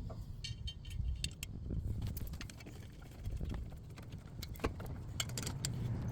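Light metallic clicks and clinks of hand tools and brake parts as the rotor's retaining screw is put back in, over a faint low steady rumble.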